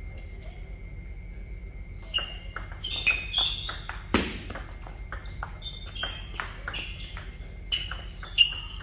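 Table tennis rally: the celluloid ball knocking back and forth between rubber paddles and the table top in a quick run of sharp pings, starting about two seconds in. A heavier thump stands out a little past four seconds.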